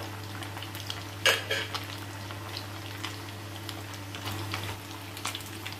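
Chicken kababs sizzling and crackling in hot oil in a frying pan, with scattered small spatters and one louder crackle about a second in, over a steady low hum.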